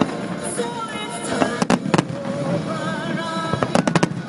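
Fireworks bursting, with clusters of sharp bangs about two seconds in and again near the end, over music playing.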